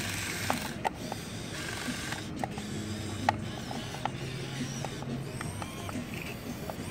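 Small electric motors and gearboxes of a radio-controlled model excavator whirring in short runs as the boom and bucket move, the hum changing pitch from one run to the next. Scattered sharp clicks are heard along with it.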